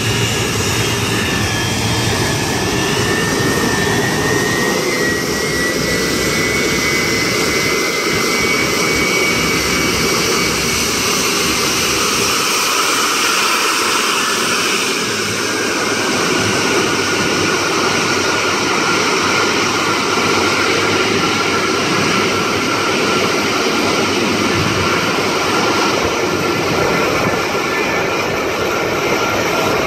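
British Airways Boeing 747-400's four jet engines running at taxi power as it rolls past and turns away: a steady, loud engine noise with a whine that rises slightly, then gives way to a lower, slowly falling whine about halfway through.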